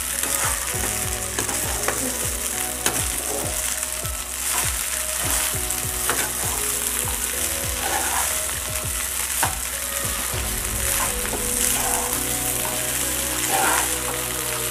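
Cooked rice and peas sizzling in a hot pan while being stir-fried, with a perforated metal spatula scraping and tapping against the pan many times.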